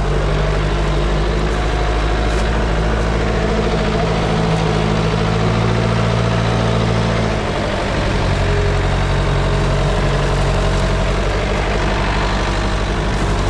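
Cat 262 skid steer's turbo diesel engine running steadily while the machine moves over brush. About halfway through the engine note dips briefly and changes pitch, then steadies again.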